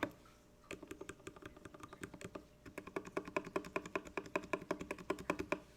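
Typing on a GK64x mechanical keyboard fitted with JWK Alpaca linear switches lubed with Krytox 205g0 and HK Gaming PBT Cherry-profile keycaps. After a brief pause, lighter keystrokes begin; about halfway through the typing grows faster and louder, then it stops just before the end.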